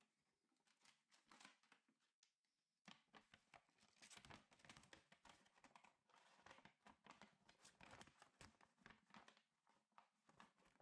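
Very faint crackling and rustling of folding paper being handled. Sparse small crackles give way, about three seconds in, to a dense run of crinkles.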